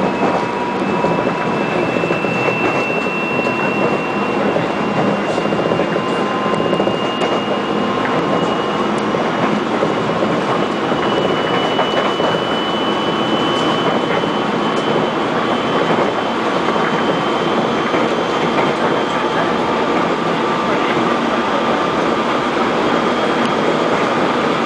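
Steady running noise inside a Korail 311000-series electric commuter train travelling at speed, with a thin whine that rises slowly in pitch and a few faint clicks of wheels over the rails.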